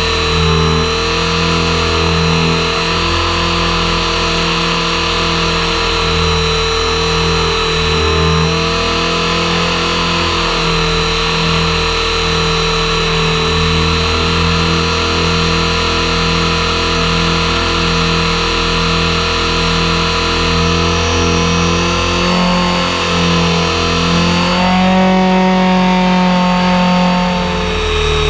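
Radio-controlled helicopter heard from its own onboard camera: a steady motor and gear whine over the whir of the spinning main rotor, its pitch shifting a little near the end as the model is rolled upright from inverted.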